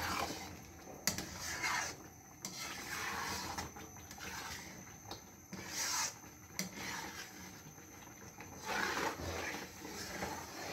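A spoon stirring and scraping thick carrot pudding in a large non-stick wok, with irregular rubbing strokes and a sharp knock against the pan about a second in.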